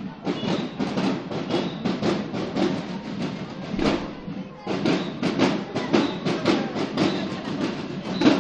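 Marching drums beating a steady parade cadence, about three to four strikes a second.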